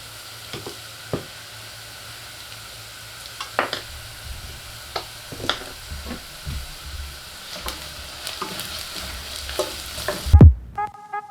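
Onions and spices frying in hot oil in a pan, with a steady sizzle and a spoon clicking and knocking against the pan as they are stirred. Near the end a few heavy thumps, then background music with a beat comes in.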